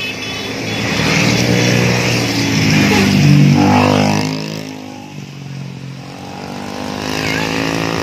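A Mercedes-Benz coach passing close by. Its engine drone grows louder, is loudest about three and a half seconds in, then drops in pitch and fades as it moves away. Road traffic builds again near the end.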